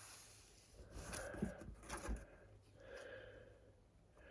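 Slime being handled and squished, making faint squelches and small clicks, a few of them about one to two seconds in.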